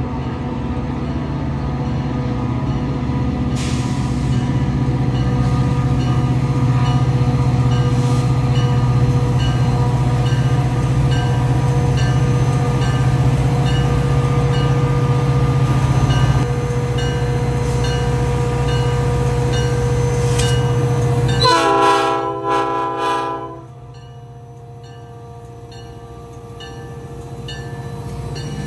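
An EMD F40PH diesel locomotive runs with a steady heavy drone as it approaches with its passenger train, while a bell dings about once a second. About 22 seconds in, the air horn sounds for about two seconds. After that the sound drops to a quieter train rumble that grows again near the end as the locomotive passes.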